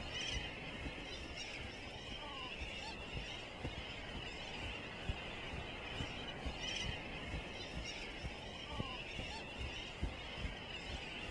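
A seabird colony calling: many birds at once in a dense, honking chatter. An uneven low rumble runs underneath.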